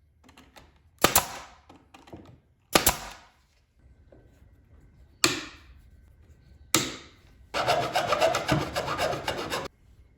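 Four sharp knocks, a second or two apart, then about two seconds of loud, steady rasping noise.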